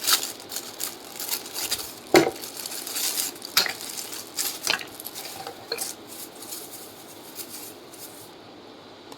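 Hard plastic vacuum cleaner attachments being handled and set down: a string of irregular clicks and knocks, the loudest knock about two seconds in, thinning out toward the end.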